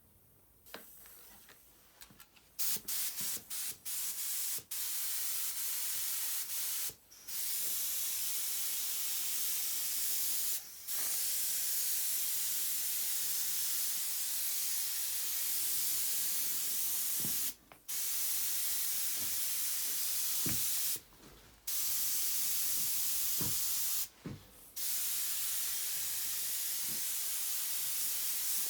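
Spray hissing in repeated passes: a few quick short bursts, then long sprays of several seconds with brief pauses between them, the hiss sitting high in pitch.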